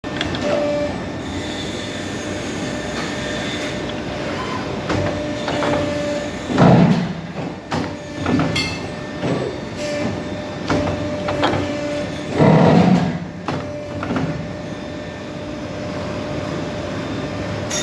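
CNC pipe bending machine running through its bending cycle: a steady machine hum with a whine that comes and goes, and two loud surges near the middle, about six seconds apart.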